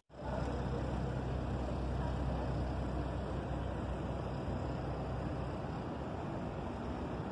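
Steady low engine rumble with a hiss over it, starting just after a brief cut-out at the very start.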